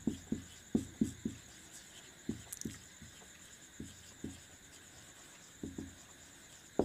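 Marker writing on a whiteboard: a string of short, soft strokes and taps, irregular and with pauses between words, with a sharper stroke near the end.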